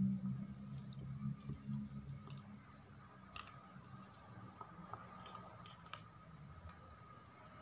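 A kitten chewing and gnawing at rice and a chicken bone, heard as faint scattered clicks and crunches. A low hum is there at first and fades out by about two seconds in.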